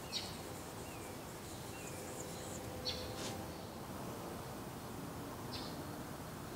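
A small bird's short high chirps, three in all, about two and a half seconds apart, over a steady faint background hiss.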